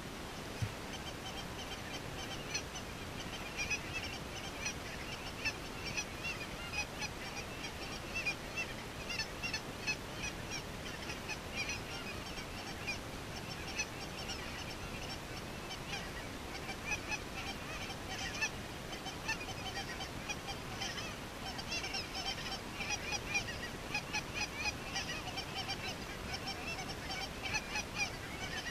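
A flock of geese calling overhead, many short high-pitched yelps and honks overlapping in a continuous chatter.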